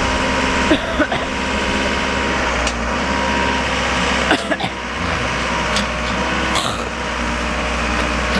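Backhoe's diesel engine running steadily as it works, with a few short, sharp knocks scattered through.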